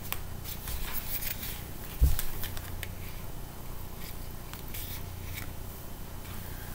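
Hermès leather lipstick case being handled, its flaps folded open and pushed shut, with light rubbing and scattered small clicks. A single dull thump comes about two seconds in.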